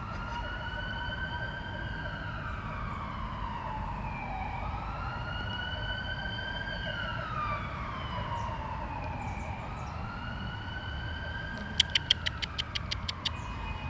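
Emergency-vehicle siren wailing, its pitch slowly rising and falling about three times. Near the end comes a quick run of sharp clicks.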